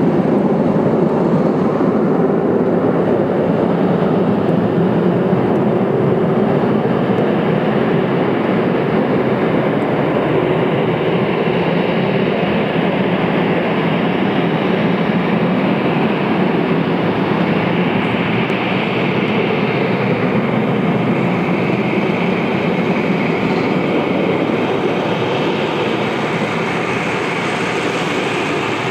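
Airbus A319's CFM56 turbofan engines running at taxi power: a steady, loud jet rumble, with a higher whine growing stronger in the second half as the jet turns to face head-on.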